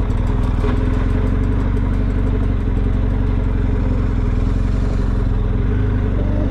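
BMW R 1250 GS's boxer-twin engine running steadily at low revs as the motorcycle rolls slowly in second gear.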